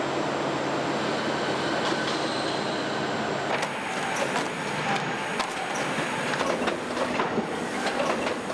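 Steady machinery hum and whir in a dairy plant. From about three and a half seconds in, a cup-filling and packaging line runs, with many quick irregular clicks and knocks of plastic cups and machine parts.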